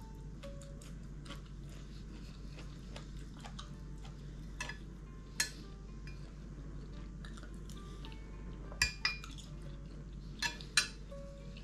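Chewing at a meal while a metal spoon scrapes and clinks against a ceramic bowl. There is a sharp clink about five seconds in and a few more between nine and eleven seconds.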